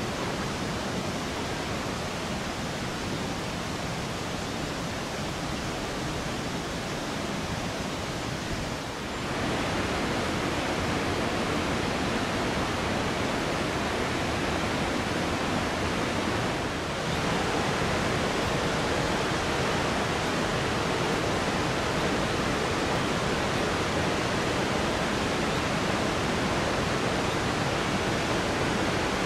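Waterfall rushing: a steady, even noise of falling water that steps louder twice, about nine and about seventeen seconds in.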